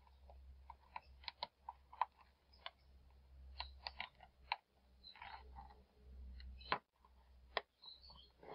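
Plastic snap clips of an Audiosonic T-17B tablet's back cover clicking as fingernails pry the case apart: faint, irregular clicks, with one louder snap about two seconds before the end.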